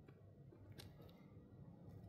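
Near silence: a faint low rumble with two soft clicks about a second apart.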